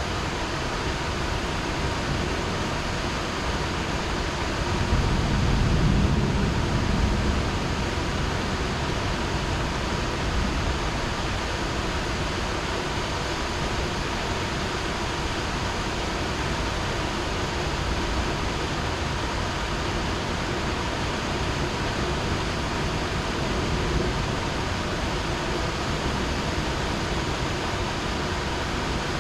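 Heavy rain falling steadily, with a low rumble of thunder swelling about five seconds in and dying away a few seconds later.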